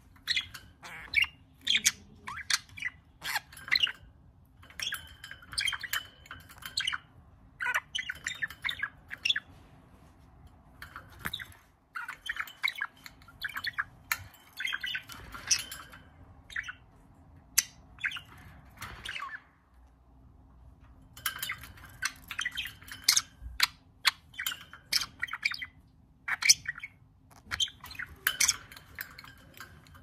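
Budgerigar chattering and warbling: quick runs of chirps, clicks and squawky notes in several bursts, with short pauses between them.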